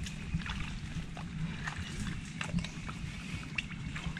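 Sloshing and squelching in mud and shallow water with many small scattered clicks, over a steady low rumble.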